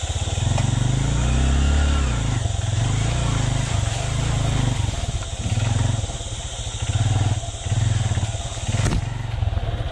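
Honda CRF150L single-cylinder four-stroke dirt bike engine running under way, revving up and easing off again and again over the rough going. A single sharp knock comes about nine seconds in.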